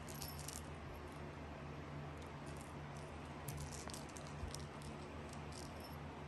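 Faint rustles and light ticks of a kitten batting and pouncing on small toy mice and a rattan ball on a fabric sofa, over a steady low hum.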